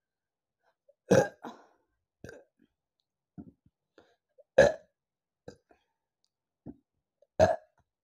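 A woman burping after gulping a fizzy apple soft drink: three loud, short burps about a second in, halfway through and near the end, with smaller throat sounds in between.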